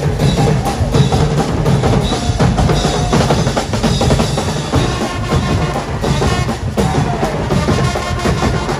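Carnival parade drum band playing: many drums beaten together in dense, continuous drumming with a strong low beat.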